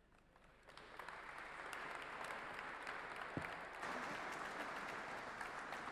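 Audience applauding, starting about a second in and beginning to die down near the end.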